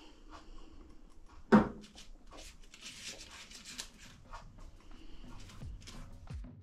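Pastry brush dipped in a cup of milk and brushed over puff pastry: soft scratchy strokes and small taps, with one sharp knock about one and a half seconds in.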